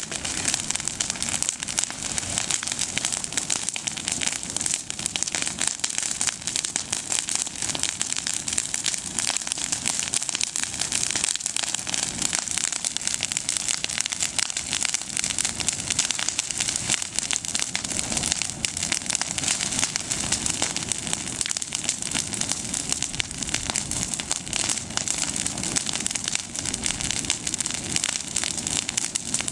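Bonfire of freshly pruned olive branches crackling steadily, a dense rapid crackle of burning leaves and twigs.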